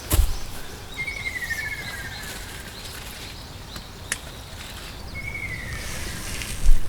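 A songbird sings two phrases that slide downward in pitch, a few seconds apart, over a steady low outdoor rumble. A sharp click comes in the middle and a dull thump near the end.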